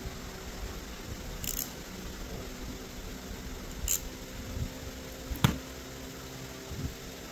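Small hand ratchet on the carburetor bowl screws, giving short bursts of clicking a couple of times. About five and a half seconds in, a single sharp knock of the metal ratchet set down on the workbench, then a few soft handling thuds.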